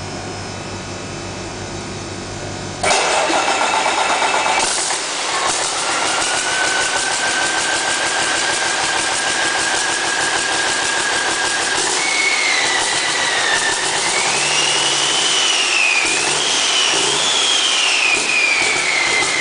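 Cummins ISX Gen 2 inline-six diesel engine running bare on a floor stand: a steady low drone for about three seconds, then a sudden jump to loud running. A high whistle then rises and wavers up and down in pitch.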